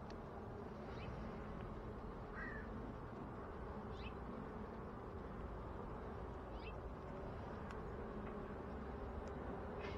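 Honeybees buzzing in a steady hum around an open beehive, with a bird giving short chirps several times over it.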